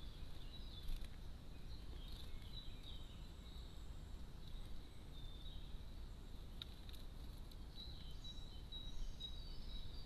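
Faint, scattered chirps of small garden birds over a steady low rumble and hiss, with a thin high tone held throughout and a couple of brief clicks.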